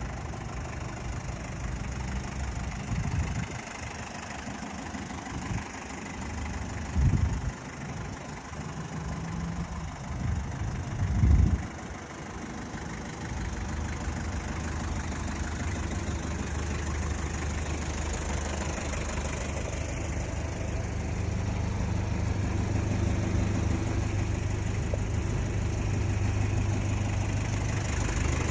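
Mazda Bongo Brawny diesel engine running: it rises briefly three times in the first dozen seconds, then settles into a steady, low idle.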